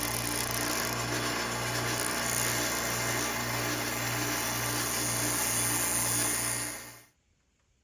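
Honda Life JC1 kei car running, with a steady low drone that pulses about twice a second, cutting off abruptly about seven seconds in.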